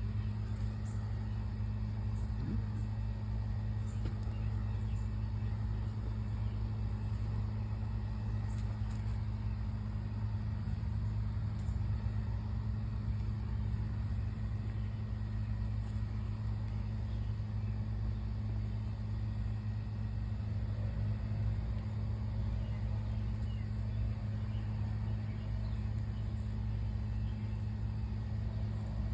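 Steady low mechanical hum, unchanging in pitch and level throughout.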